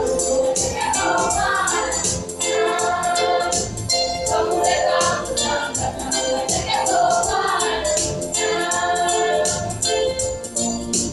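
A choir of students singing together in full voice over a steady percussive beat.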